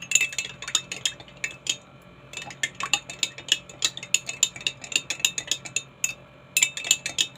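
Spoon clinking against a drinking glass while stirring a drink, in quick runs of taps with a ringing note, pausing briefly about two seconds in and again about six seconds in.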